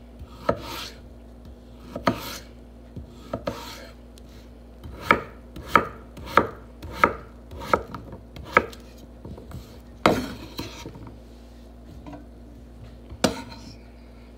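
Chef's knife chopping a vegetable on a wooden cutting board: a dozen or so sharp knocks of the blade striking the board, with a steadier run of about six strokes around the middle.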